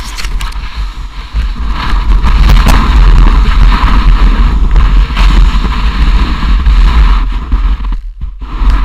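Loud rushing of wind and snow with a heavy low rumble of buffeting on an action camera's microphone, as the camera is engulfed in a billowing snow cloud; it swells about two seconds in and dips briefly near the end.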